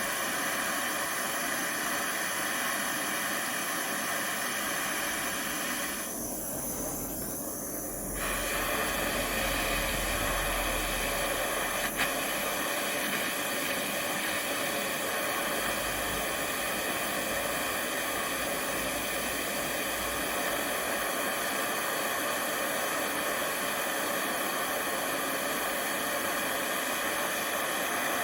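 Gas torch flame burning with a steady hiss while heating a steel steering rod. The hiss softens briefly about six seconds in, and there is a single sharp click about twelve seconds in.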